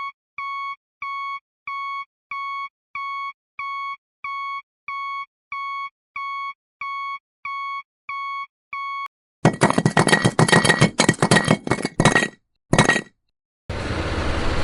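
Vehicle reversing alarm beeping steadily, about two beeps a second, for roughly nine seconds. It is followed by a burst of rattling and clattering, and near the end a steady rushing noise.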